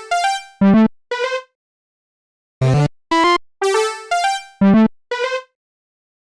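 A short synthesized electronic melody of quick, separate notes. A phrase of about six notes ends, a pause of about a second follows, then the phrase plays again, its last note wavering.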